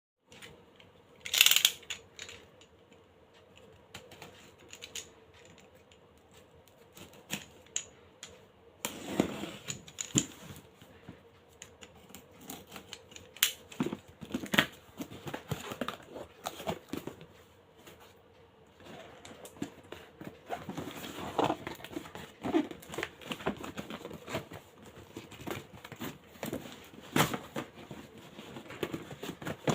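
Packaging being handled and opened: plastic and cardboard crinkling and tearing, with many scattered clicks and knocks.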